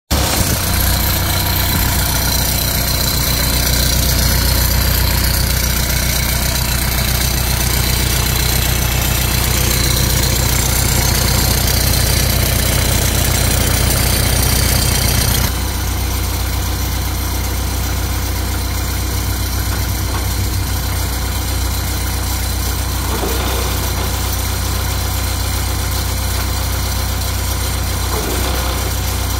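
Diesel engine of a 2002 Sreco Flexible 39 hp sewer rodder idling steadily. It drops a little in loudness about halfway through.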